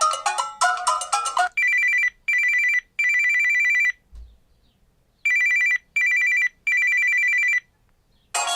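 Samsung Galaxy Y (GT-S5360) ringtones played one after another. A melodic ringtone ends, then a ringtone of two steady high tones sounding together rings in two groups of three pulses (short, short, long) with a pause between, and the next melodic ringtone starts near the end.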